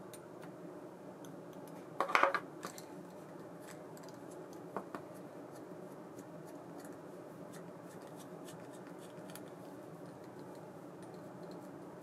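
Small metal parts of a round baitcasting reel clicking and clinking as it is taken apart by hand with a screwdriver: a short cluster of sharp clatters about two seconds in, a couple of single clicks near five seconds, then faint light ticking.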